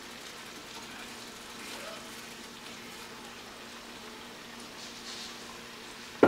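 Diced vegetables sizzling softly in melted butter in a large pot, with a faint steady hum underneath. A single sharp knock comes right at the end.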